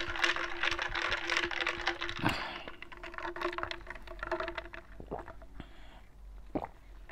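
Close-miked eating sounds: small clicks and wet mouth noises, busiest in the first couple of seconds and sparser after, over a faint steady hum.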